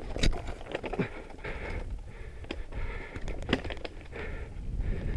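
Mountain bike rolling down a dirt forest trail: tyre noise on the soil, with a few sharp knocks and rattles from the bike as it goes over roots and bumps, over a low wind rumble on the microphone.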